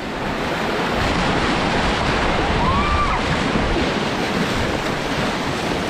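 Whitewater rapid rushing and splashing around an inflatable raft, with wind buffeting the microphone. A short, faint cry sounds about three seconds in.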